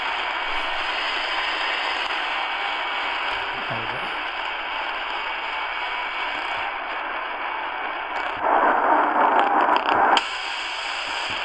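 Tecsun PL-310ET portable radio's speaker hissing with medium-wave static, tuned to a weak, distant AM station at 1290 kHz that barely comes through. About eight seconds in the noise grows louder for two seconds, then drops back as the bandwidth filter is stepped.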